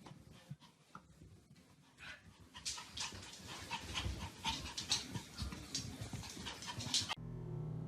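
Dog panting rapidly, its quick breaths growing louder, cut off abruptly near the end by a steady low hum.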